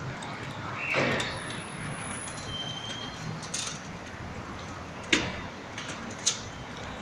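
Wheeled ambulance stretcher being loaded into the back of an ambulance: rattling and scraping, then two sharp metal clacks a little over a second apart near the end, over steady background noise.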